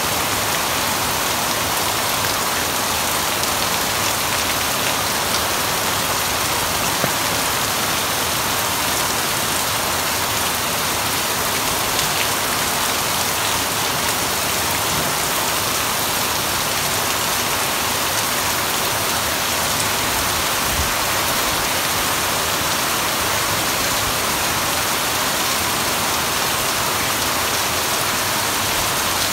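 Heavy rain pouring steadily, a dense, even hiss of drops.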